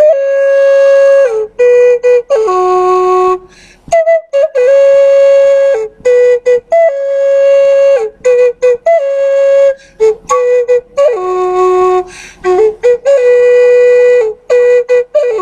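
Background music: a solo melody on a wind instrument, long held notes mixed with quick short ones, with brief gaps between phrases.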